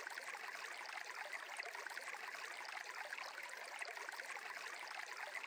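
Faint, steady sound of flowing water, an even trickling hiss.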